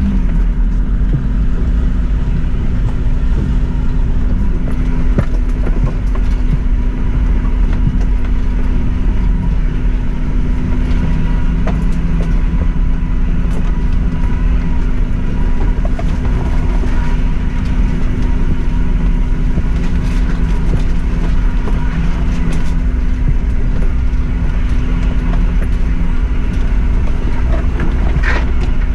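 Suzuki Jimny driving slowly along a rough unsurfaced track: a steady engine drone with scattered knocks and clicks from the bumpy going.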